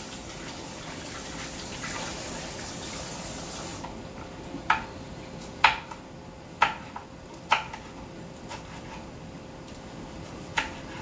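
Kitchen tap running for about four seconds, then turned off. A knife then strikes a cutting board about six times, sharp single cuts roughly a second apart, as Cheongyang chili peppers are cut.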